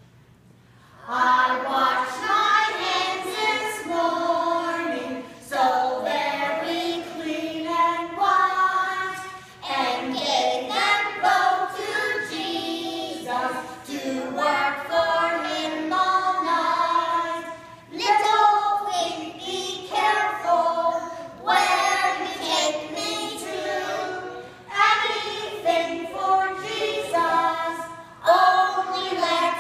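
A group of young children singing a song together, phrase by phrase with short breaths between lines; the singing starts about a second in.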